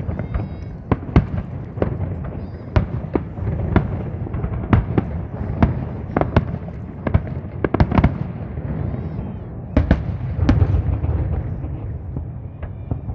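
Aerial fireworks bursting in quick succession, sharp bangs about one or two a second over a continuous low rumble of the show.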